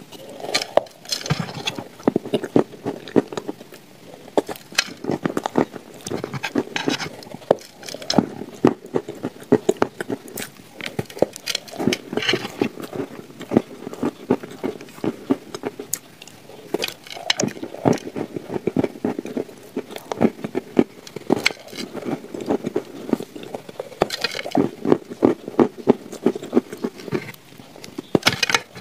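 A person biting into and chewing a dry, crumbly shortbread slab spread with paste: crisp crunching and crackling, coming in runs with short pauses.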